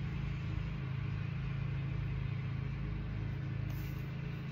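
Distant lawnmower engine running steadily, a continuous low drone.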